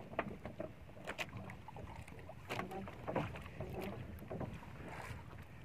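Small wooden outrigger canoe rocking at sea: water lapping against the hull, with scattered light knocks and clicks.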